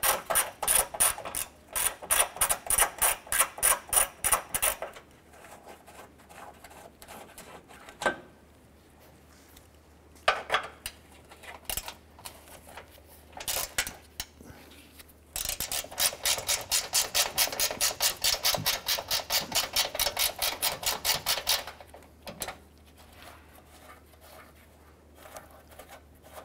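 Hand ratchet clicking in quick, even runs while backing out bolts: one run ending about five seconds in, a few lone clicks, then a second, faster run from about fifteen to twenty-one seconds in.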